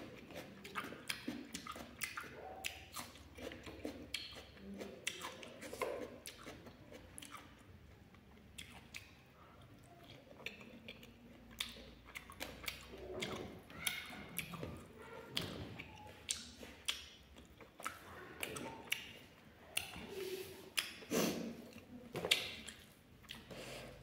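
Close-up chewing and mouth sounds of a person eating by hand from a plate, with irregular small clicks and smacks throughout.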